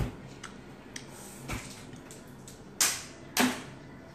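Short sharp noises from eating and handling the cups: a few light knocks, then two louder ones close together near the end.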